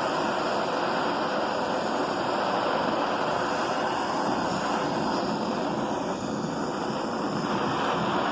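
Handheld butane torch flame burning with a steady, even rush, heating aluminium to the point where Durafix filler rod will melt on it.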